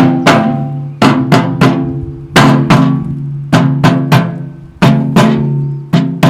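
Rubber mallet knocking a steel tooth bar into a tractor loader bucket: about fifteen sharp blows in quick groups of two or three, the steel ringing on after each blow.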